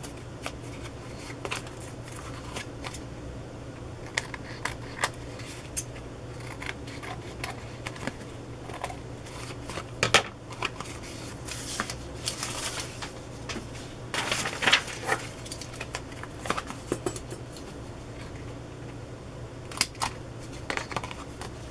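Scissors snipping through manila tag card stock in short, irregular cuts, with paper rustling and handling. Near the end a few sharp clicks as a small metal hand tool is worked on the tag, over a steady low hum.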